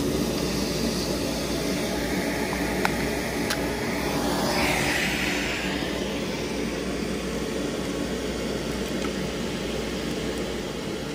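A CNC router spindle and a shop vac dust collector running steadily together, with a few faint clicks. A brighter hiss rises around the middle and then settles back.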